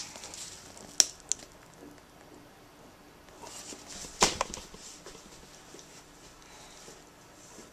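Handling noise of sneakers being turned over in the hands: a couple of sharp clicks about a second in, then rustling and a louder knock about four seconds in, followed by quiet room tone.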